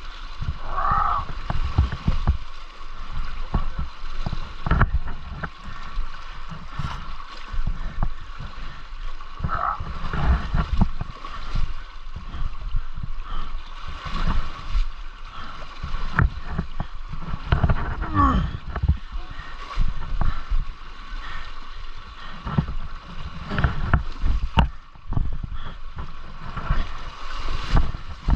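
Dirt bike engines working through a river crossing, mixed with splashing and the rush of river water; the sound is loud and uneven, with irregular surges and thumps.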